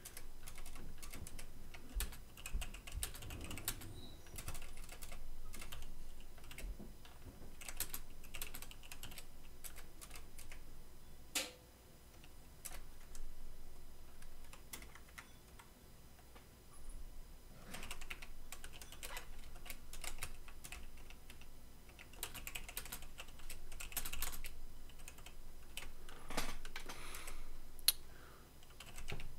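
Typing on a computer keyboard in irregular bursts of key clicks, with short pauses between them.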